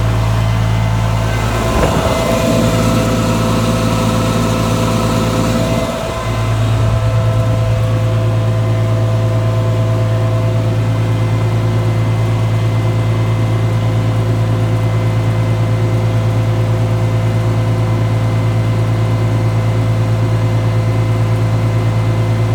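Turbocharged Ford 1720 tractor's three-cylinder diesel running steadily at PTO speed, driving a PTO generator under load. About two seconds in a few seconds of extra noise join the steady hum, and then it settles back to an even drone.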